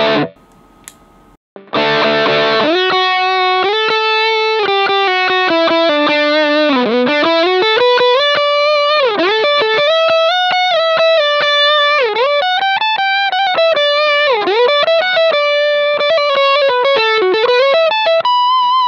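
Electric guitar played through a Sinvertek Drive N5 Plus distortion pedal with its gain structure switch on Vintage. After a pause of about a second, a chord, then a single-note lead line with several string bends, ending on a held note.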